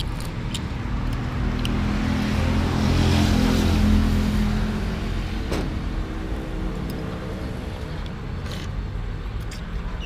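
A motor vehicle passing on the road. Its engine hum grows louder to a peak about three to four seconds in, then fades away. A few light clinks of utensils against a bowl come through over it.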